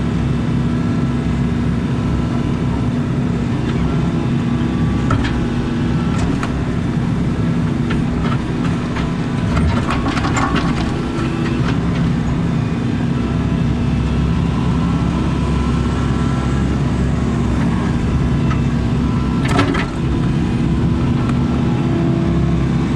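Excavator's diesel engine running steadily as the machine works, with a few knocks and clanks from the bucket against concrete and dirt, one loud one near the end.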